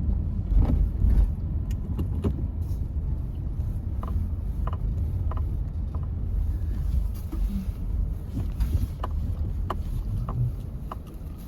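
A car driving, heard from inside the cabin: a steady low road-and-engine rumble, with scattered light clicks and rattles.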